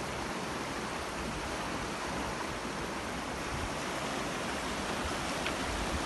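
Fast-flowing river rushing over stones, a steady even noise.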